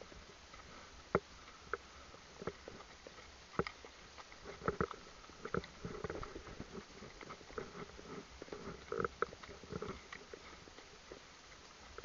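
Hooves of ridden and led horses on a dirt track, heard from the saddle as irregular knocks and clicks over a low rumble, busiest in the middle.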